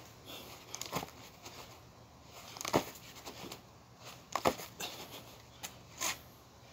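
Loaded rucksack rustling and knocking with each lift, four short sounds spaced about a second and a half apart.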